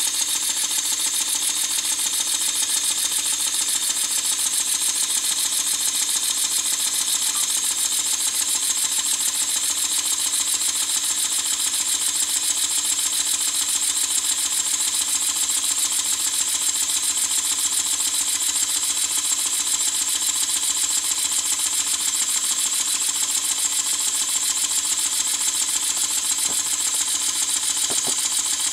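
PM Research #3 horizontal model steam engine running on compressed air: a steady, rapid string of hissing exhaust puffs as the air is let out of the cylinder.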